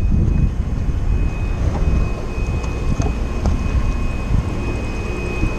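Steady low rumble aboard an offshore fishing boat, with a faint, steady high tone running through it.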